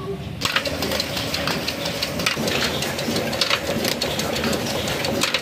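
Old 1978 stationary engine running steadily, its large spoked flywheels and flat drive belt turning, with a rapid knocking beat. It grows louder about half a second in.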